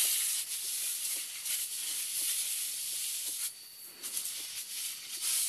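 Liquid fertilizer mix spraying from the nozzle of a 15-litre tank sprayer onto coffee leaves: a steady hiss that breaks off briefly about three and a half seconds in, then resumes.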